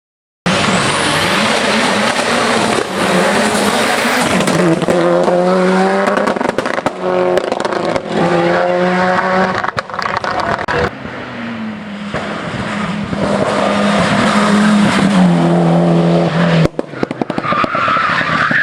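Hillclimb race cars at full throttle, engines revving up through the gears with repeated drops in pitch at each upshift. Near the end, tyres squeal.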